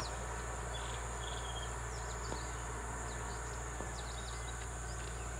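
Steady outdoor background noise with a constant high hiss and a low hum, and a few faint short chirps.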